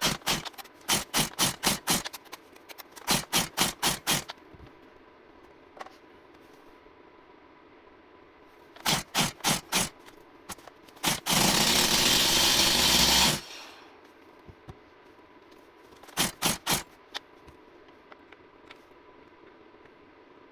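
Stihl MS 170 chainsaw being pull-started without starting: several pulls on the recoil starter cord, each a quick run of evenly spaced strokes as the small two-stroke engine turns over. It is a saw that will not start. A loud rushing noise lasts about two seconds midway.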